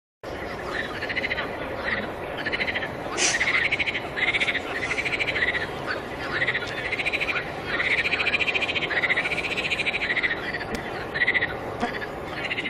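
A chorus of animal calls: repeated arching, pulsed calls, some short and some about a second long, one after another over a steady hiss, starting abruptly just after a moment of silence.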